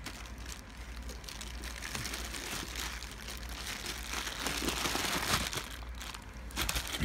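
Plastic packaging and bubble wrap crinkling as they are handled, with lots of small crackles that grow louder in the second half.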